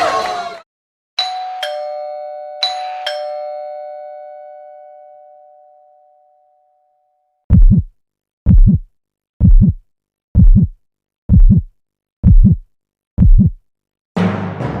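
Two-tone doorbell chime rung twice, a high note then a lower one each time, ringing out for a few seconds. Then seven deep, even thumps about a second apart, a heartbeat sound effect.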